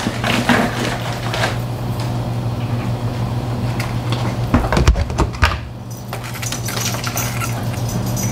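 Scattered clicks and knocks from objects being handled, with a few heavier thumps about five seconds in, over a steady low hum.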